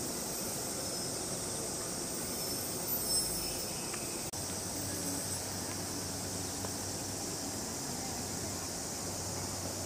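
Steady high-pitched insect chorus over a low, even outdoor rumble, broken by a brief dropout about four seconds in.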